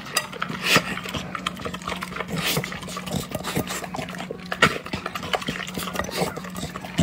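A dog eating kibble soaked in water from a glass bowl: irregular wet chewing and smacking with sharp clicks, a little louder about a second in and again near the middle.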